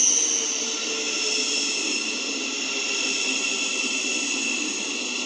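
Thameslink Class 700 electric multiple unit running past close by as it arrives, its traction equipment giving a steady high-pitched whine over the rumble of the wheels on the rails.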